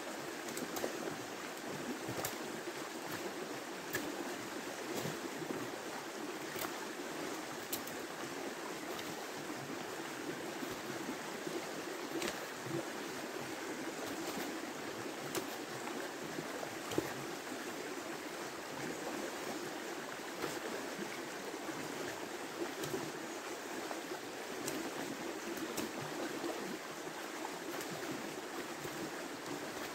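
River running steadily: a constant rush of flowing water, with occasional faint clicks over it.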